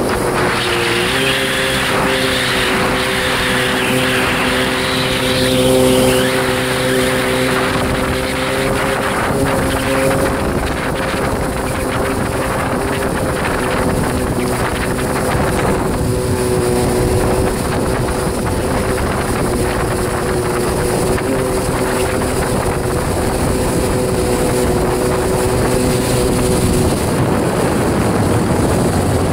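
1993 Kawasaki 650SX stand-up jet ski's two-stroke twin engine running at a steady cruising speed, over the rush of water and spray against the hull. The engine note steps up slightly about a second in and sinks into the water noise near the end.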